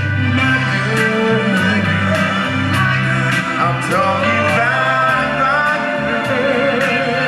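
A male soul singer singing live into a handheld microphone over amplified backing music with a steady bass line.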